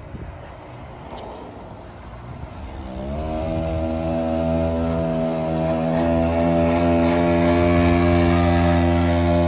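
Small engine of a mini bike over twenty years old, running while the bike is ridden, which the owner says is not running great. The engine note is fainter at first, rises a little about three seconds in, then holds steady and grows louder as the bike comes close.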